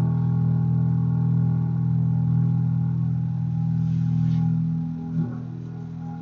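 Double bass sounding a sustained low drone of several held pitches, which drops in level about five seconds in, with one short knock just after.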